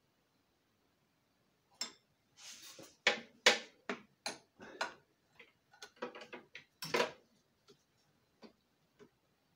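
Hand tools and metal compressor parts being handled: an irregular run of sharp knocks and clinks that starts about two seconds in, with the loudest strikes near the middle, thinning to a few light clicks near the end.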